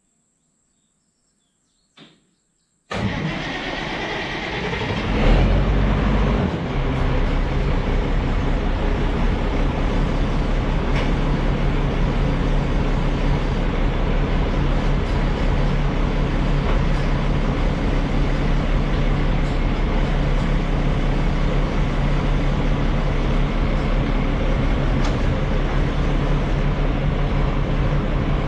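Tractor engine starting, then running steadily.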